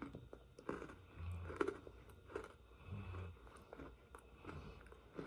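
A person chewing an Oreo chocolate sandwich cookie close to the microphone, a crisp crunch about every three-quarters of a second.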